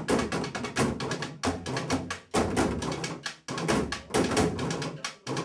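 Wooden sticks drumming on plastic wheelie bins: a fast rhythm of sharp strikes, broken by a few brief pauses.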